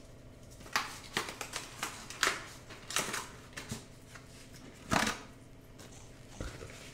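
Kitchen wrap (baking paper and foil) being handled and unfolded: scattered crinkles and crackles, the loudest about five seconds in.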